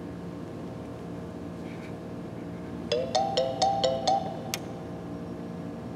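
Online countdown timer's alarm going off through a laptop's speakers as it reaches zero: a quick run of about six short chimes, each sliding slightly up in pitch, then a single click about a second later.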